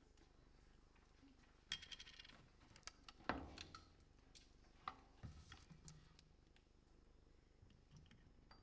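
Faint crinkling and clicking of a plastic water bottle being handled, its cap being twisted. There is a brief, louder low sound about three seconds in, and scattered soft clicks and rustles.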